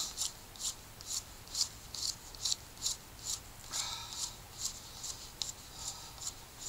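Steel blade of a Pathfinder Scout bushcraft knife scraping and shaving a thin green stick, clearing off its bark. Quick, even strokes, a little over two a second.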